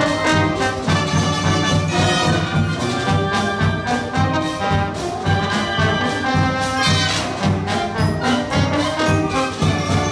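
A band with trumpets and trombones playing a piece, with strong wind rumbling on the microphone over the music.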